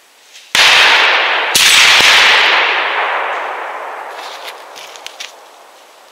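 Two gunshots from hunting guns about a second apart, fired at roe deer during a driven hunt, each echoing and slowly dying away through the forest over a few seconds.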